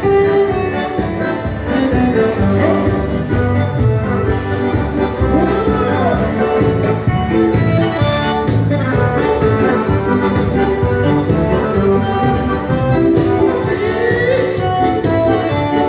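Dance-band music playing at a baile, with a steady beat and held chords over it.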